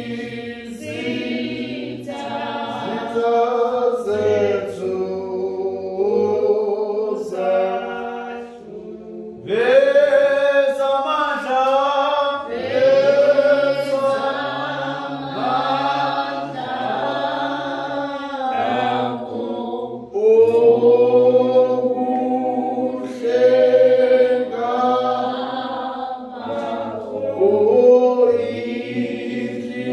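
Church congregation singing a hymn unaccompanied, with men's and women's voices in parts. The singing swells with a new phrase about ten seconds in and again about twenty seconds in.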